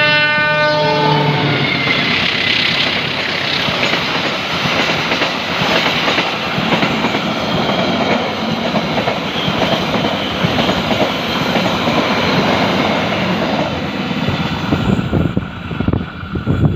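Argo Semeru express train's horn sounding and cutting off about a second in, then the train rushing past at speed with a loud, steady rolling noise of wheels on rail, which thins out near the end.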